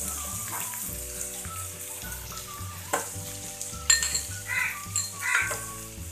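Chopped onion, tomato and capsicum sizzling as they fry in a non-stick wok, a steady hiss with a few sharp knocks about halfway through.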